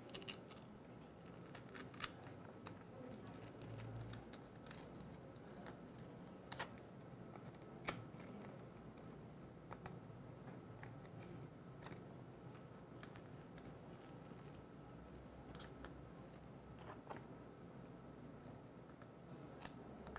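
Faint scraping and clicking of a realme 7i's plastic back cover being worked loose from the phone's frame by hand, with a few sharper clicks scattered through it.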